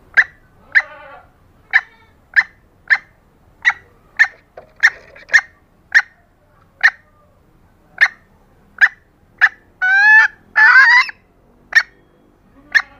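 Red junglefowl hen clucking, a hen lure call: short sharp clucks every half second to a second, broken near the end by two longer drawn-out calls.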